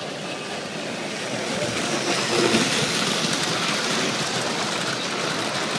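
S gauge model freight train's cars rolling along metal track, a steady rumble of wheels that grows louder about two seconds in as the cars pass close by.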